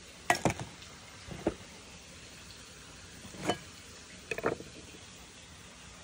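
Short, scattered kitchen-prep knocks and clicks: a glass olive-oil bottle set down with a sharp clink, then a few knocks of a knife cutting a lemon on a wooden cutting board, over a faint steady hiss.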